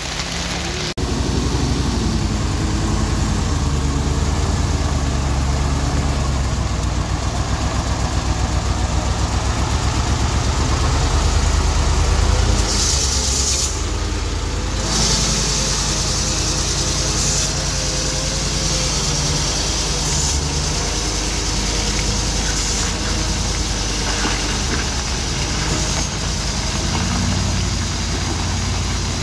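Heavy truck's diesel engine running steadily at low revs, getting louder about a second in, with a burst of hiss around the middle.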